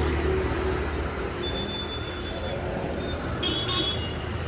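Road traffic noise with a steady low rumble, and a brief high-pitched chirp about three and a half seconds in.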